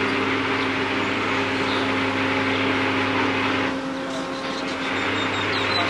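A sailboat's engine running steadily under way: a constant hum under a rushing noise. The rushing dips for about a second around four seconds in.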